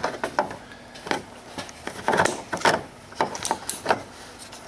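Hands brushing and tapping over the serpentine belt and engine-bay parts to check the belt's seating: a string of short rustles, scrapes and light knocks at irregular intervals.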